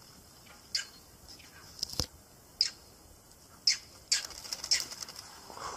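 A series of short, high-pitched animal calls, each falling quickly in pitch, about one a second and coming faster near the end, with one sharp click about two seconds in.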